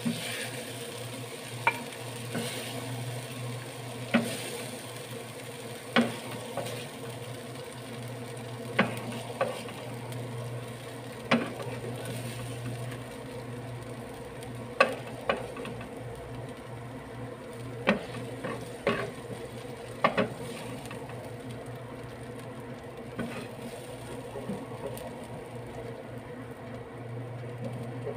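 Wooden spatula scraping and knocking against a non-stick frying pan, with irregular sharp knocks every second or two, as the stir-fried chilies are scooped out; hot oil sizzles faintly underneath.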